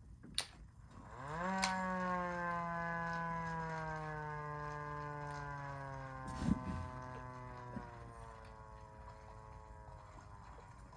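A siren with a click as it starts. About a second in it rises quickly to its pitch, then winds down in one long, slowly falling wail that fades over several seconds. A sharp thump comes partway through.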